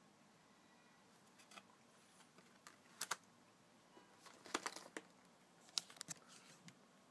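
A scattering of light clicks and taps from baseball trading cards being handled and laid down on a cloth, with the sharpest taps about three, four and a half and six seconds in.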